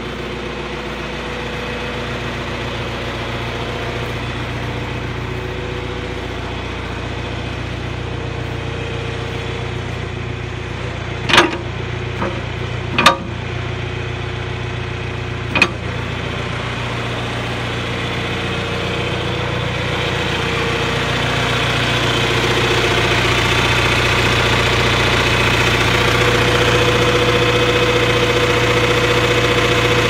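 John Deere 410 backhoe's engine idling steadily, growing louder from about two-thirds of the way in. A little past the middle come three sharp knocks: two about a second and a half apart, then a third about two and a half seconds later.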